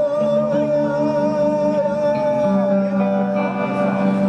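Live band music: a high, wavering held melody line over steady held guitar and bass notes, with the accompaniment shifting chord about halfway through.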